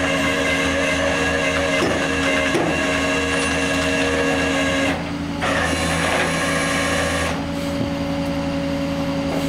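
Flatbed tow truck running its bed hydraulics and winch, a steady mechanical whine over the truck's engine hum. The whine drops briefly about five seconds in and changes pitch a little after seven seconds.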